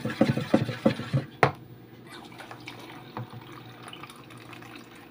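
A wooden spoon stirs and sloshes a foamy soap-and-stain-remover mixture in a plastic basin, with repeated strokes and a sharper knock about one and a half seconds in. After that a tap runs quietly and steadily as water fills a plastic tub.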